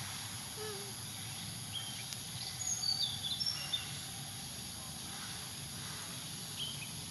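Outdoor ambience: a steady hiss with a handful of short, high chirps between about two and four seconds in.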